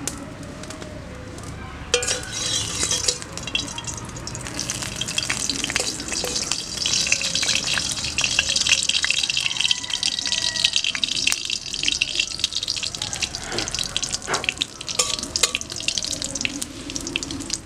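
Whole red chillies sizzling and crackling in hot oil in a wok. The sizzle starts sharply about two seconds in, then holds as a steady hiss with many small pops.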